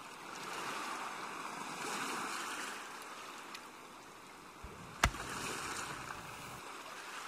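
A rushing noise that swells and fades, with one sharp click about five seconds in.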